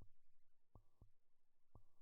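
Faint heartbeat sound effect, the steady background pulse of a countdown timer: a soft double thump about once a second.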